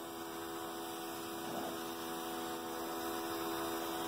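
Electric pressure washer running: a steady hum from its motor and pump with the hiss of the water spray.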